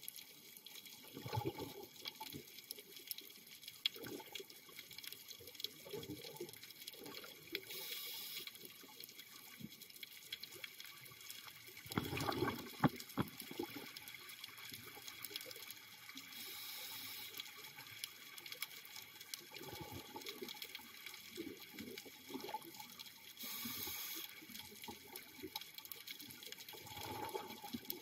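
Scuba diver breathing through a regulator underwater: a hiss on the inhales and bursts of exhaled bubbles every few seconds, the loudest bubble burst about twelve seconds in.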